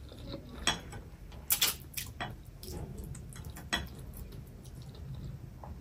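Close-miked chewing of a mouthful of chapagetti noodles: irregular soft, wet clicks of the mouth.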